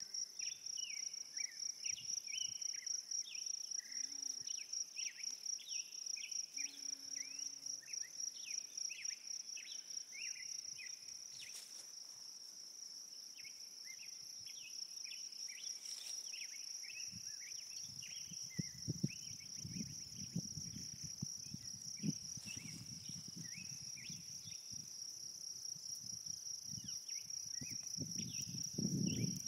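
A steady, high insect trill with short bird chirps repeating over it, thickest in the first half. About halfway through, a low, uneven rumble joins and grows louder near the end.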